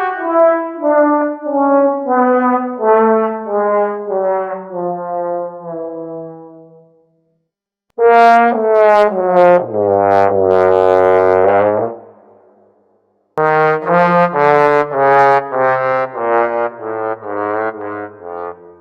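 Cartoon sad-trombone fail effects, three in a row. First comes a long run of short notes stepping down in pitch and fading away. After a short gap there are a few notes ending in a long, low, wobbling note. Then comes another run of short notes stepping downward.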